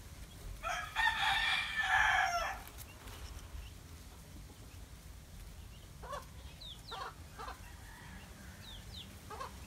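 A rooster crowing once, a loud call about two seconds long near the start, followed later by a few short, faint calls.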